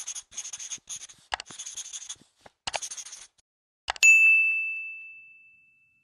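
Intro sound effects: scratchy pen-on-paper writing strokes for about three seconds, then a mouse click and a single bright notification ding about four seconds in that rings and slowly fades. The ding is the loudest sound.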